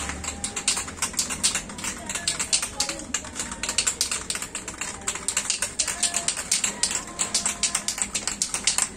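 Aerosol spray-paint can of primer being shaken, its mixing ball rattling in quick, sharp clicks, several a second.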